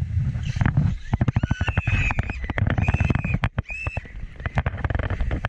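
Log flume boat being carried up the lift conveyor: rapid, irregular clattering and knocking over a low rumble, with a few short high squeals in the middle.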